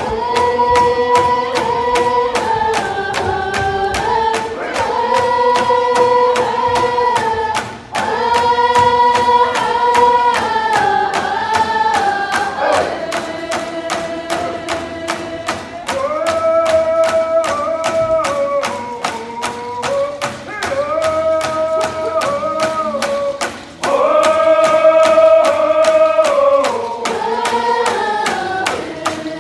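A group of Lummi (Coast Salish) singers chanting a song together in unison, in long repeated phrases, over hand-held frame drums beaten in a steady, even rhythm.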